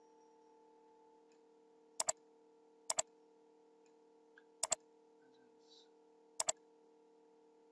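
Computer mouse button double-clicked four times, each a quick pair of sharp clicks, over a faint steady electrical hum.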